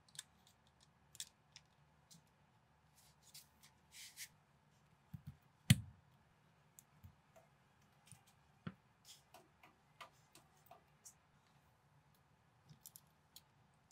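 Plastic building bricks being handled and snapped together: faint scattered clicks and small knocks, with one louder knock about halfway through.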